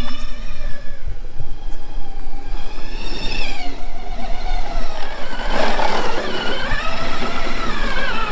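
Electric motor whine of an Outrider Coyote rear-wheel-drive electric trike, its pitch rising and falling as the rider speeds up and slows on a steep grassy climb. A short rushing noise breaks in about two-thirds of the way through.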